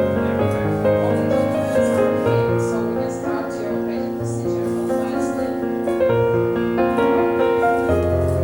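Background pop music led by piano, with a bass line that changes every second or two and no singing in this stretch.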